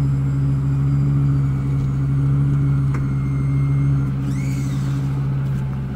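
Steady mechanical hum of the motorhome running while its HWH hydraulic slide room is being run in, with a faint high squeak about four seconds in.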